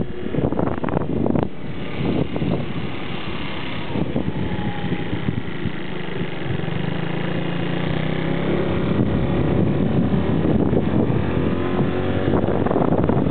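Motorbike engine running under way on a rough dirt road, with wind buffeting the microphone. A few sharp knocks in the first couple of seconds come from bumps and potholes. The engine note climbs a little past the middle as the bike speeds up.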